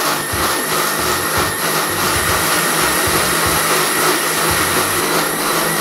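Electric blender (mixer grinder) running steadily, puréeing spinach into a green paste for palak paneer.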